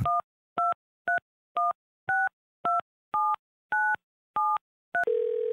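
A phone number being dialled on a touch-tone keypad: about ten short two-note beeps, roughly two a second, followed about five seconds in by a steady low line tone as the call connects.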